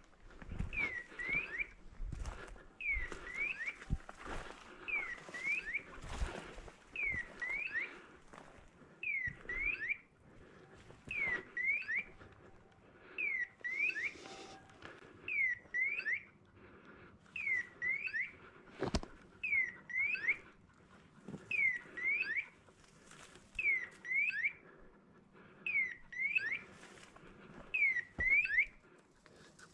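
Hunting dog's beeper collar giving a two-note electronic chirp about every two seconds, the fast repeat that signals an Irish setter standing on point. Footsteps crunch on loose stones between the chirps.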